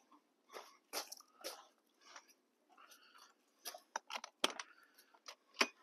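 Footsteps crunching on gravel at an irregular walking pace, then a few sharp clicks about four seconds in as the motorhome's entry-door handle is pulled and its latch works.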